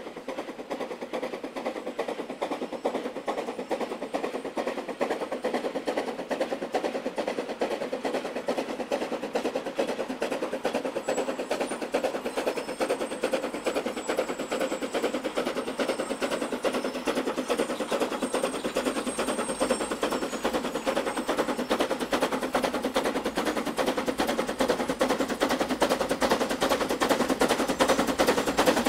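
C2 narrow-gauge steam locomotive working a train, its exhaust beating in a rapid, sharp stream of chuffs that grows louder as it draws close.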